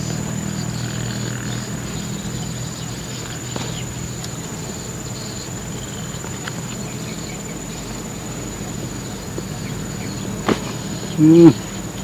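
Insects droning steadily in a thin high tone over a low steady hum. Near the end comes a sharp click, then a short loud hummed "mm" from a person's voice.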